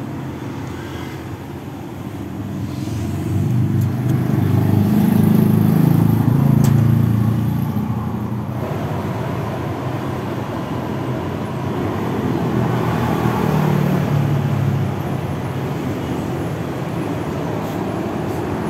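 Steady motor-vehicle road noise: engine and tyre rumble with a haze of road and wind noise. The rumble swells twice, about four seconds in and again about twelve seconds in.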